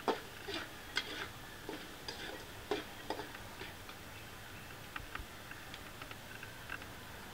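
Steel spatula stirring shallots and garlic in an aluminium kadai: a quick run of sharp clicks and scrapes against the pan over the first three seconds or so, then only sparse faint ticks.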